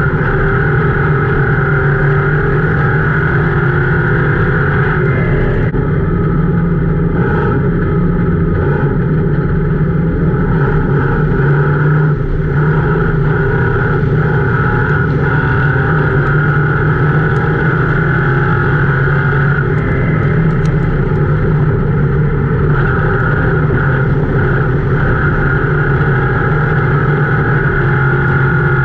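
Crown Victoria race car's V8 engine running hard under racing load, heard from inside the cabin as a loud, steady drone with brief dips in pitch, one about twelve seconds in.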